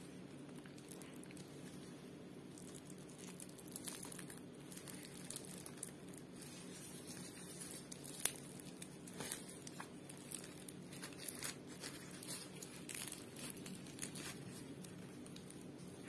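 Crisp pan-fried layered flatbread (kattama) with green onion being pulled and torn apart by hand: a run of small crackles and rustles as the browned flaky layers separate, with one sharper crack about eight seconds in, over a faint low hum.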